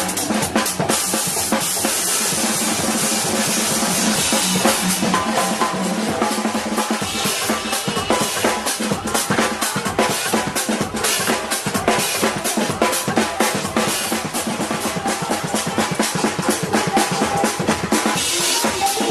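Snare drum played live with sticks in fast, continuous strokes, over a loud club music track with a heavy bass-drum beat.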